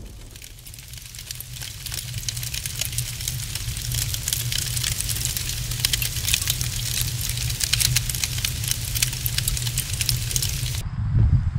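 Fire crackling sound effect: a dense crackle of tiny pops over a low rumble, growing louder over the first few seconds and cutting off suddenly near the end.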